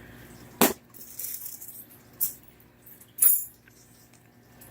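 Shipping packaging being handled and unpacked: a sharp knock about half a second in, then rustling and a loud crinkle of packing material about three seconds in.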